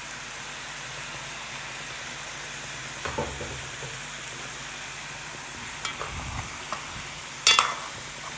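Curry-seasoned chicken pieces sizzling steadily in a large metal pot while a metal spoon stirs them. The spoon knocks against the pot a few times, with a loud scraping clatter near the end.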